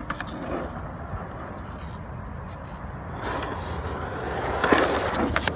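Skateboard wheels rolling on a concrete bowl: a steady rumble with a few light clicks, growing louder from about three seconds in.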